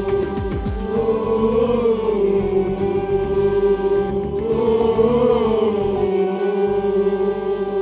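Group of voices singing a long held note in unison in a football supporters' chant song, the pitch swelling up and back down twice, with percussion strokes in the first second.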